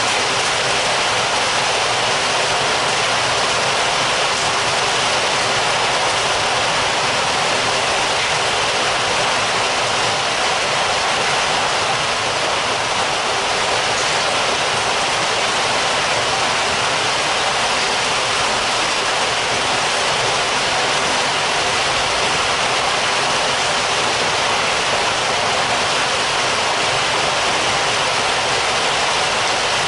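Heavy rain heard from indoors: a steady, dense hiss of downpour with no pauses or single drops standing out.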